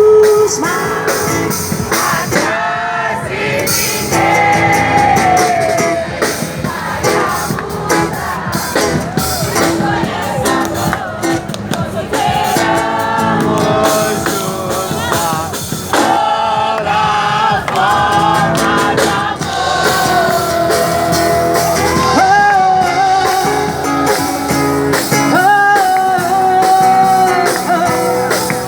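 Live band music with a woman's voice singing over it in sliding, wordless vocal lines.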